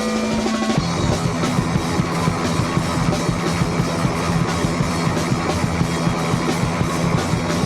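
Rock music: electric guitar over a drum kit with a steady beat.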